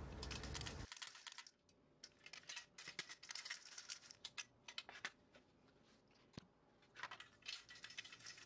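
Faint, uneven rattling and patter of dried cornelian cherry tarhana crumbs being shaken in a metal sieve, with short spells of ticking and rustling and near-quiet gaps between them.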